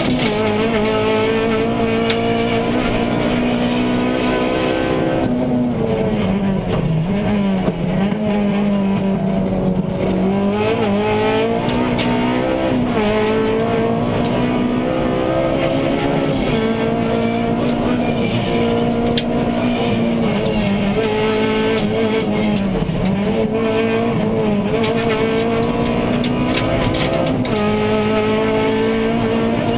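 Honda Civic Type-R Group N rally car's four-cylinder engine at racing speed, heard from inside the cabin, with road and tyre noise. The revs rise and fall repeatedly, dropping lowest about six to ten seconds in before climbing again.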